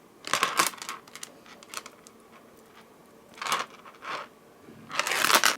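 Handling noise from tying knots in a beaded necklace thread: a handful of short rustles and clicks, the loudest near the end.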